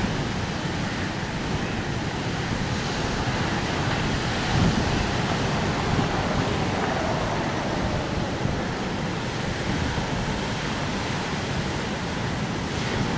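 Steady rushing outdoor wind, buffeting the microphone with a low fluttering rumble.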